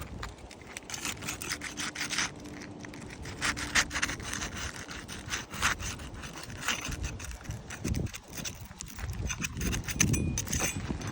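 Irregular, gritty scraping and rubbing on asphalt roof shingles, with scattered sharp clicks, as the shingles are handled and lifted.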